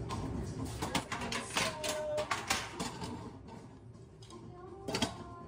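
A cooking pot being handled: a quick run of knocks and clinks against the stove and counter, with one louder knock near the end.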